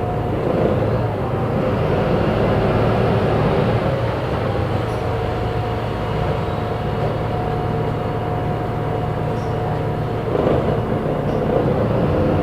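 Volvo B290R bus with a Voith automatic gearbox running: a steady engine drone with a thin whine that holds and slides slightly in pitch.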